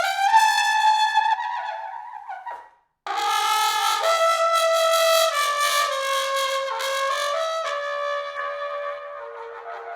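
Unaccompanied trumpet solo with no reverb. A held note fades out, there is a short break, then a loud new phrase starts about three seconds in, steps down through several notes and dies away near the end.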